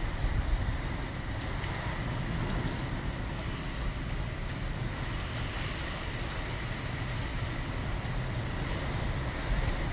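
Typhoon wind blowing steadily around and over a building: an even rumble with a hiss over it, strong enough to make the building sway.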